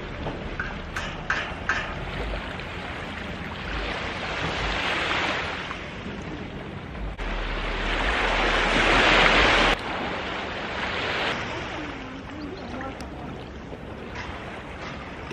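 Small waves washing onto a sandy beach, the hiss of the surf swelling and fading, loudest about nine seconds in. Wind rumbles on the microphone at times.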